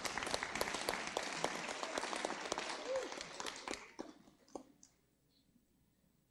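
Audience applauding with many scattered claps that thin out and stop about four seconds in.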